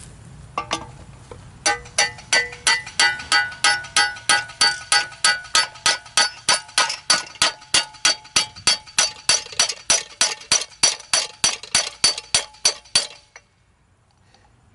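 Hammer blows on a steel pipe fitting used as a driver to knock a worn front wheel bearing out of the hub: a couple of knocks, then a steady run of ringing metallic strikes, about three a second, that stops near the end.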